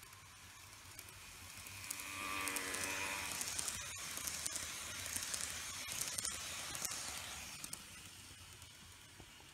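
N-gauge model shinkansen (TOMIX E3 Komachi) running past on its track: the small electric motor's whir and wheel noise swell as it approaches and fade as it moves away. Light clicks about every half second as the cars go by.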